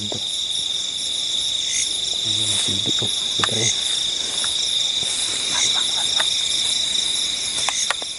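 Steady, high-pitched chorus of night insects such as crickets, with a faster pulsing trill layered above it. A few faint clicks come through.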